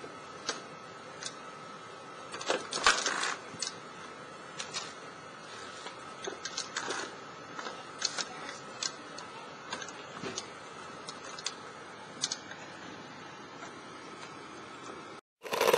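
Irregular clicks and knocks from the BigDog quadruped robot's feet and legs stepping over loose concrete cinder blocks, with a louder clatter about three seconds in, over a faint steady whine. Just before the end a loud engine sound cuts in.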